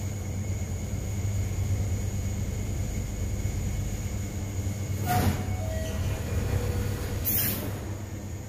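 Steady low mechanical rumble with a faint high whine over it, broken by two short hissing swishes about five and seven seconds in.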